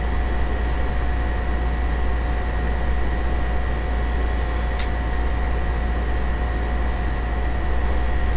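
A steady hum and hiss with a faint constant whine, and one short click about five seconds in.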